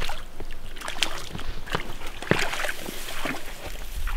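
Shallow lake water splashing and sloshing in a run of irregular splashes, typical of a trout being handled and let go at the water's edge.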